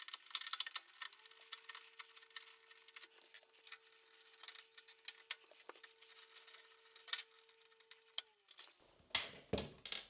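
Light metallic clicks and scrapes of a screwdriver undoing the bolts on a Daikin Altherma heat pump's sheet-metal cover, with a few sharper ticks and a faint steady hum underneath.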